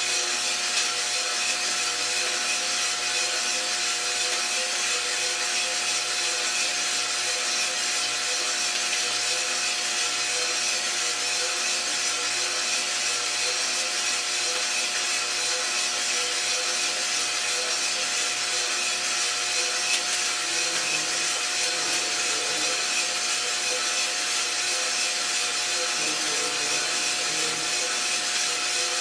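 iRoaster 600 coffee roaster running mid-roast: a steady whir of the drum and fan with a constant hum, and the dry rustle of coffee beans tumbling in the drum.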